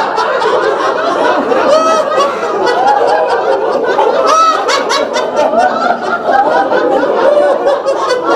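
A group of people laughing together, many voices overlapping in continuous giggles and chuckles: deliberate laughter-yoga laughter, a laughing exercise done as a group.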